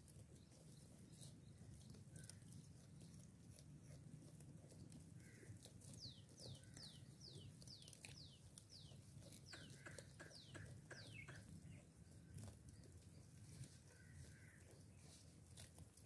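Faint soft clicks and rips of goats cropping grass close by. In the middle a bird gives a run of about a dozen quick falling whistles, roughly two a second, over a low steady rumble.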